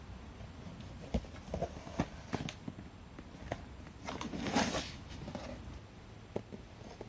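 Cardboard shipping box being opened by hand: scattered taps and knocks as the box and its flaps are handled, then a short rustle of cardboard and plastic wrapping a little over four seconds in.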